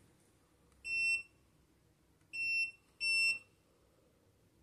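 Touch-panel buttons of a LUXORISE iTouch WAX PRO digital wax heater beeping as they are pressed to start it heating. There are three short, high, steady beeps: one about a second in, then two close together near the middle.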